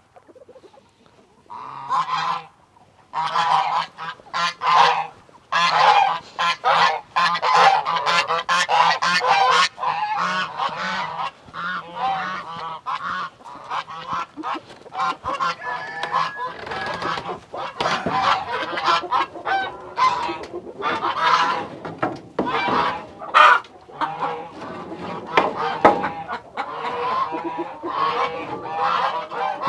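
Geese honking over and over, many short calls overlapping, starting about two seconds in.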